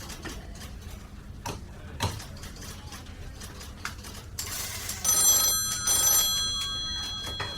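Office background of scattered light clicks and knocks, then about five seconds in a telephone rings. The bright, steady ringing tone is the loudest sound and fades slowly.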